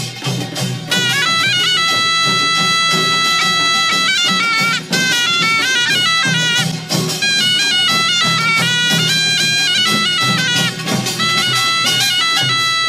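Korean folk dance music: a taepyeongso, the loud double-reed shawm, plays a stepping melody of held notes over a busy, steady percussion beat.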